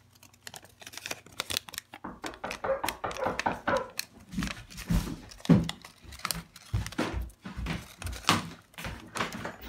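A sheet of origami paper being folded and creased by hand: irregular crinkling and rustling, with dull low bumps in the second half.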